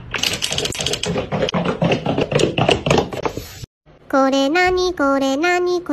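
About four seconds of indistinct, noisy sound thick with rapid clicks, which cuts off abruptly. Then a high voice chants a short Japanese phrase over and over in a sing-song way, holding each note and stepping up and down in pitch.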